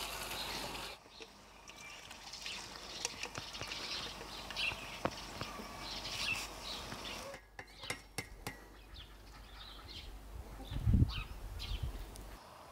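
Birds chirping, with light clinks and scrapes of metal kitchenware: liquid splashing as it is poured through a mesh strainer at the start, then a strainer and dish being handled. A low thump about eleven seconds in is the loudest sound.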